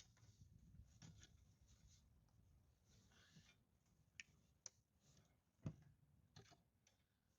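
Near silence broken by a few faint, sharp clicks and light knocks, the loudest about five and a half seconds in.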